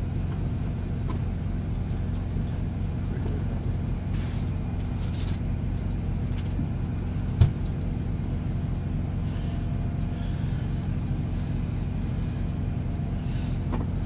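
Steady low hum of a semi truck's engine idling, heard inside the sleeper cab. A single sharp knock about halfway through.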